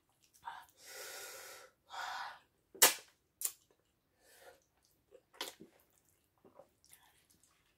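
Close-up mouth sounds of someone eating fufu by hand: two breathy huffs about a second in, then a run of sharp, wet smacking clicks, the loudest about three seconds in.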